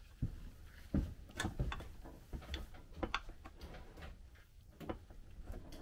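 Irregular metal clicks and taps of a pry tool working against the water pump base on a MerCruiser MR outdrive gearcase, trying to free a pump housing stuck after the pump overheated.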